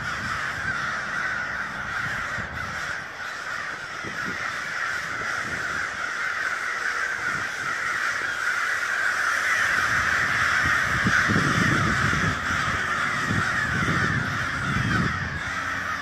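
A huge flock of crows calling overhead: a dense, continuous chorus of many overlapping caws.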